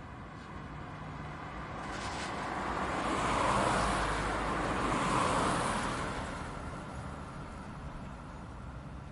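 A car passing by: road and tyre noise swells over a couple of seconds, is loudest around the middle, then fades away.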